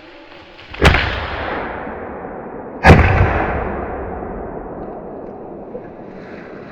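Two close, loud gunshots about two seconds apart, each followed by a long rolling echo that dies away over several seconds.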